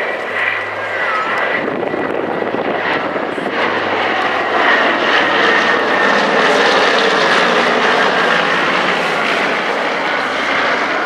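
Consolidated PBY-5A Catalina flying past, its two Pratt & Whitney R-1830 Twin Wasp radial engines and propellers running steadily. The sound grows louder to a peak about halfway through as the aircraft passes closest, then eases a little.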